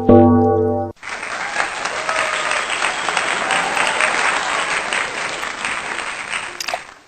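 Background music for about the first second, cut off abruptly, then a steady, dense rushing hiss until another abrupt cut near the end.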